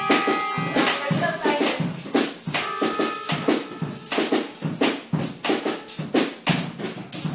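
Informal jam-session music: a tambourine shaken and struck in a steady beat, about two hits a second, over held keyboard notes.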